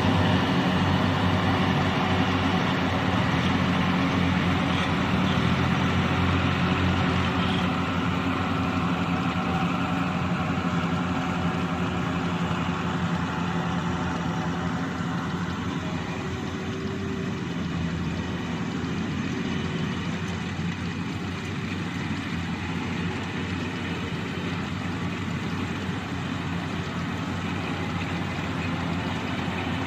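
Yanmar 82V rice combine harvester's engine running steadily, easing slightly in loudness partway through.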